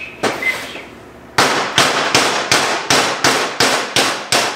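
Hammer blows on a steel plate: one strike, then a rapid steady run of about a dozen blows at roughly four a second, each with a short metallic ring. It is the sound of hammering the cut steel mounting plate into shape.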